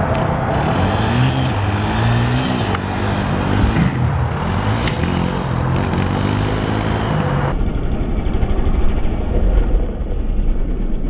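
Dirt bike engine revving as the bike is ridden across grass and up a wooden ramp, its note rising and falling several times with the throttle. About seven and a half seconds in the sound turns duller, a low rumble.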